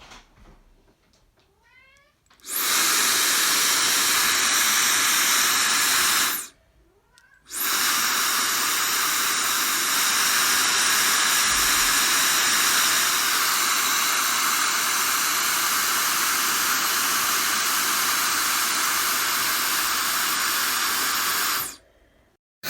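A high-speed brushless ionic hair dryer running with a steady rush of air. It winds up with a rising whine, runs for a few seconds, and is switched off about 6 seconds in. It winds up again and runs steadily until it cuts off just before the end.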